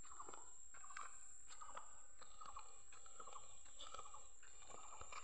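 Faint footsteps crunching on a gritty road surface at an even walking pace, about two steps a second.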